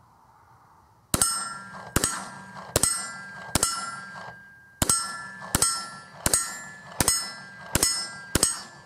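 Steady string of about ten 9mm Glock pistol shots, roughly one every three-quarters of a second with a slightly longer pause midway, starting about a second in. Each shot is followed by the ringing of a steel target being hit.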